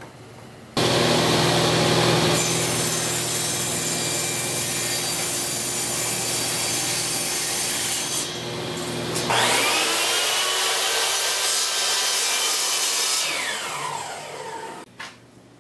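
Table saw running and ripping a strip of oak, the blade noise growing brighter once it is in the wood. About nine seconds in, a Tradesman miter saw spins up with a rising whine, cuts the oak, and winds down with a falling whine near the end.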